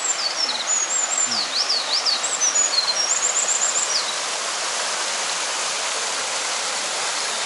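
Steady rush of falling water from a waterfall, with small birds chirping over it and one fast trill about three seconds in; the birds fall silent after about four seconds while the water runs on.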